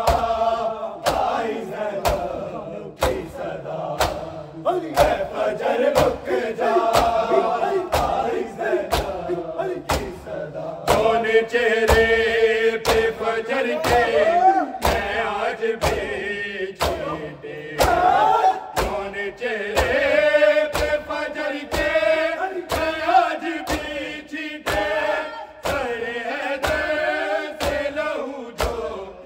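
Male voices chanting a noha, an Urdu mourning lament, in unison, over a steady rhythm of sharp slaps from hands beating on bare chests in matam, about one and a half slaps a second.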